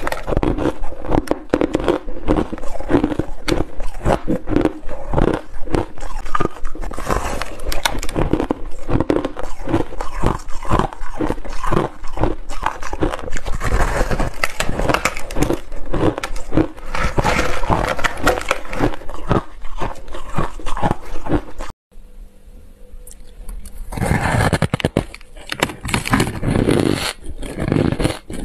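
Frozen crushed ice being bitten and chewed close to the microphone: a dense run of crackling crunches. It drops out briefly about three-quarters of the way through, then crunching starts again.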